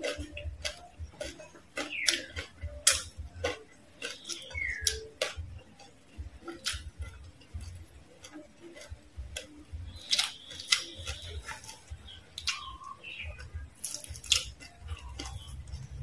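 Close-miked chewing of crispy fried frogs: irregular crunches, crackles and wet mouth clicks.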